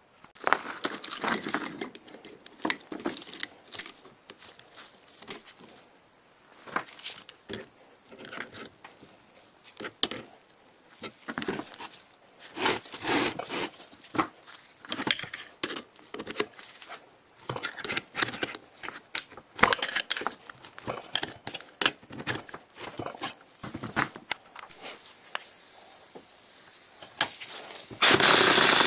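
Metal parts and hand tools clinking, rattling and scraping in irregular bursts as an electric motor is worked on. About a second before the end, a loud, steady power tool starts abruptly.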